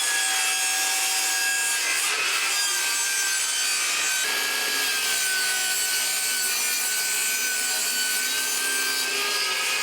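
Table saw running and ripping a strip from 12 mm plywood: a steady whine from the motor over the hiss of the blade cutting through the wood.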